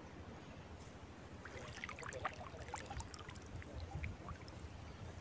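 Light water splashing and trickling in a short irregular patter for a couple of seconds in the middle, over a low rumble of wind on the microphone.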